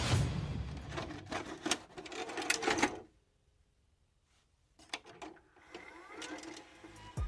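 Rapid clicking and ticking sound effects of an animated logo intro, fading out about three seconds in. After a short silence, faint clicks and a brief rising sweep follow.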